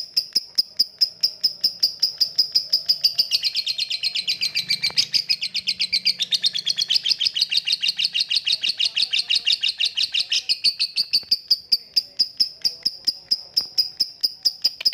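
Songbird singing a long run of sharp, evenly repeated chirps, about five a second. After about three seconds the notes come faster and drop lower, then slow back to the single high note near the end.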